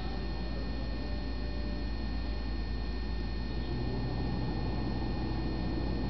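Steady low rumble and hiss with faint, steady high-pitched whines. This is an old camcorder's own running noise mixed with blizzard wind on its microphone, with no distinct event.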